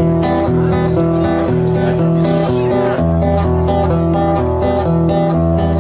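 Acoustic guitar strummed steadily, changing chords every second or two: the instrumental introduction to a folk ballad, with no voice yet.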